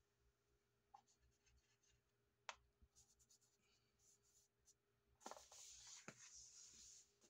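Very faint sounds of a hand drawing in cascarilla powder on a wooden floor. A few light taps and ticks come first, the sharpest a little before the middle, then about two seconds of soft brushing and rubbing as the palm smooths the powder near the end.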